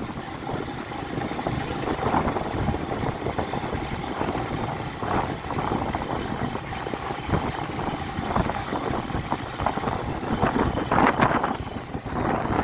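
Small motorcycle engine running as the bike rides along a dirt road, with wind noise on the microphone and a few louder swells.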